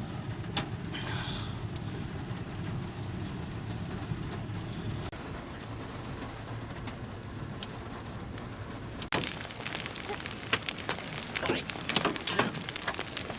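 Very large hail and heavy rain pounding down: a steady rush with a few sharp knocks of hailstones. About nine seconds in the sound changes abruptly to a dense clatter of many hailstone strikes.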